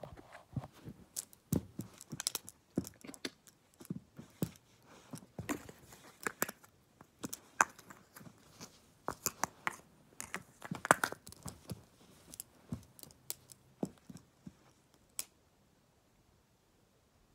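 Plastic gel pens being handled and knocked together close to the microphone: a stream of irregular clicks, taps and rustles that stops about fifteen seconds in.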